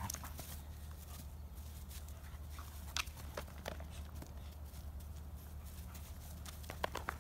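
Two dogs, a Doberman and a black puppy, tussling over a rope toy on dry grass: quiet scuffling of paws and the toy, with a few scattered light clicks, a small cluster of them near the end.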